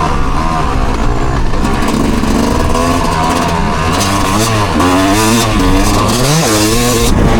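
A motor vehicle's engine being revved, its pitch rising and falling again and again over a steady low drone, the revs coming quicker in the second half.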